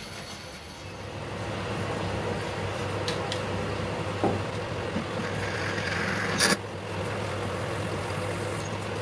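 Metal lathe running with its spindle turning, a steady mechanical hum that grows louder about a second in. A few short knocks sound over it, the loudest about six and a half seconds in.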